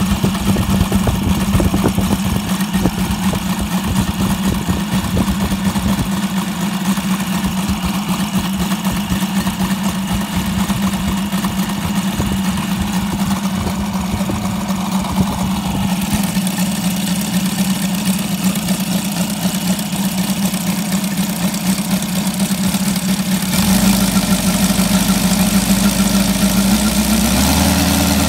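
UMS 7-90 90cc seven-cylinder radial petrol engine running steadily on a test stand, turning a 24x10 propeller. It gets louder about 24 seconds in, and near the end its pitch climbs as it speeds up.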